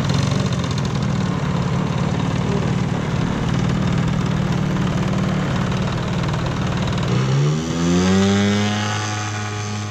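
Large radio-controlled model airplane's engine running at idle with a rough, uneven beat. About seven seconds in it is opened up for the take-off run: the pitch climbs quickly, then holds high and steady as the model pulls away, slowly growing fainter.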